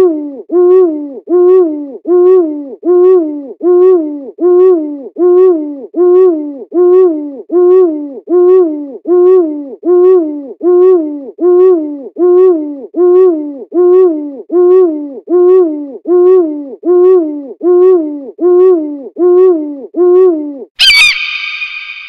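Eurasian eagle owl hooting: one short, low, rising-and-falling hoot repeated evenly, about four every three seconds, over and over. The hoots stop near the end, where a sharp click is followed by a bright ringing ping that fades.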